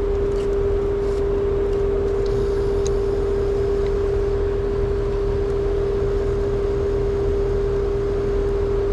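Trane two-stage outdoor air-conditioning unit running: a steady compressor hum with one constant mid-pitched tone over the even rush of the condenser fan.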